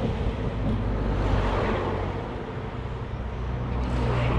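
Road traffic: a vehicle going by on the road, its engine and tyre noise swelling about a second in and fading, then building again near the end over a steady low rumble.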